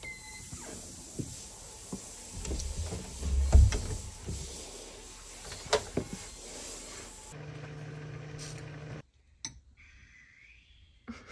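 An apartment front door with a digital keypad lock opening and swinging shut, with a short electronic tone as it opens, then knocks, thuds and rustling as someone steps into the entryway; the heaviest thud comes about three and a half seconds in. A steady low hum follows for a couple of seconds after about seven seconds, and the last couple of seconds are nearly silent.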